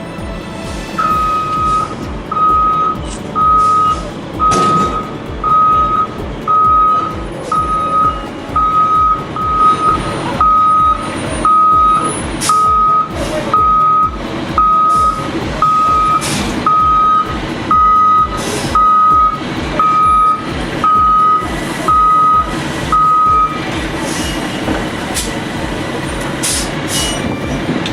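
A truck's reversing alarm beeping steadily about once a second, over a running engine and scattered metallic clanks; the beeping stops a few seconds before the end.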